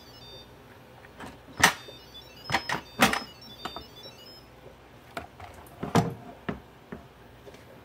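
Instant Pot lid being twisted to unlock and lifted off the cooker: a series of sharp plastic-and-metal clicks and knocks, the loudest about a second and a half in, three seconds in and six seconds in.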